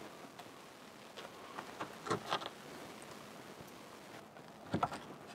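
Axe blade being pressed down through a bread sandwich on a wooden board. There are faint soft crunches about two seconds in and a couple of short knocks near the end.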